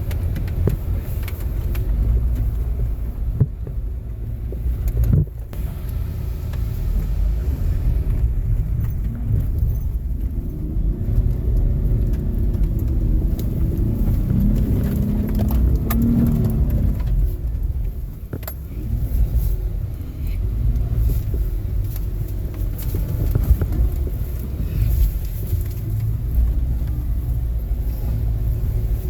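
Off-road 4x4's engine working hard in mud: a heavy low rumble, with the revs rising and falling in the middle as it is driven through. A few sharp knocks sound along the way.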